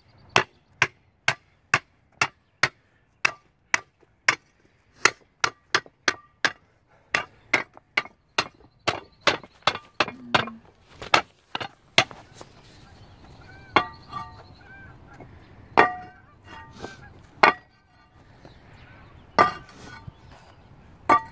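Repeated sharp knocks of hard stone on stone, about two a second for the first twelve seconds, then slower, louder clinks that ring, as concrete patio-step blocks are worked into place on a pea-gravel bed.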